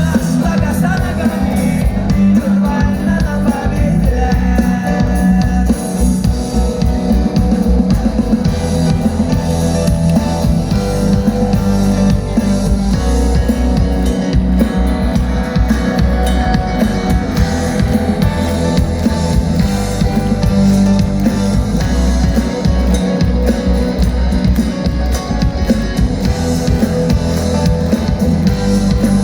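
Rock song playing with guitar and drum kit, an instrumental stretch without clear sung lyrics.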